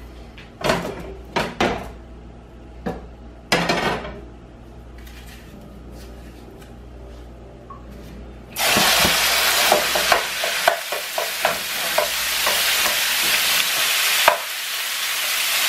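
A few knocks of a utensil against a pan, then about eight and a half seconds in a sudden loud sizzle as raw chicken pieces go into hot olive oil in a deep stir-fry pan. The sizzling carries on, with the clicks and scrapes of stirring.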